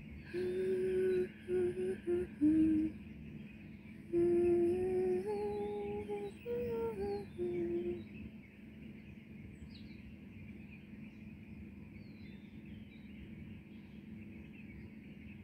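A person humming a slow tune for about eight seconds in a series of held notes, then stopping. Faint bird chirps sound over quiet outdoor ambience.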